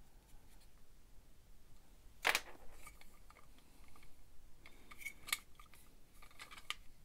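Hard black plastic parts of a Makita CL001GZ cordless vacuum clicking and knocking as they are handled and set down on a workbench. One sharp knock comes a little over two seconds in, and a few lighter clicks follow around five to six seconds in.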